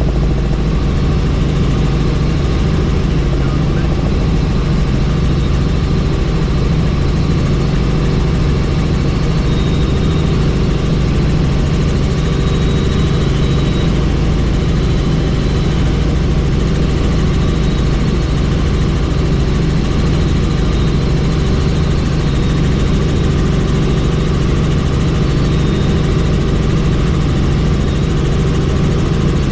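Helicopter in flight, heard from on board: steady engine and rotor noise with a strong low hum that holds even throughout.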